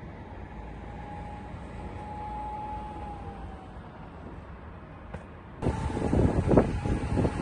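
A heavy machinery engine runs steadily with a low rumble and a faint whine that swells and fades. About two-thirds of the way through, the sound cuts abruptly to louder machine noise with several sharp knocks.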